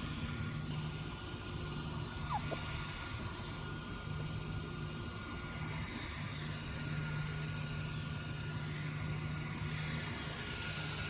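Steady low outdoor background rumble with an on-off hum, and one faint short high squeak about two seconds in.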